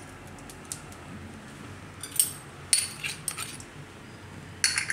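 A few light metallic clinks with a short ring on a stainless-steel mixing bowl, about two seconds in, again around three seconds, and a quick cluster near the end.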